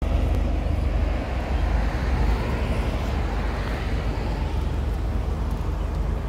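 Road traffic noise, a steady low rumble with a vehicle passing: the noise swells about two seconds in and fades again near four seconds.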